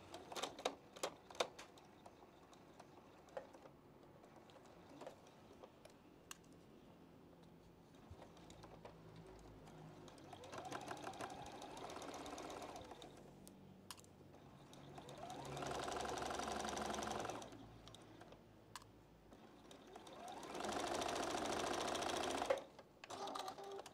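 Juki domestic sewing machine stitching in three runs of a few seconds each, with pauses between; each run starts with a short rising whir as the motor picks up speed. Light clicks from handling the fabric come in the first few seconds.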